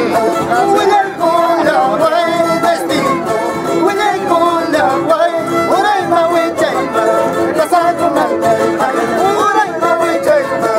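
Live string band playing a traditional tune: two violins carry a wavering melody over strummed acoustic guitars.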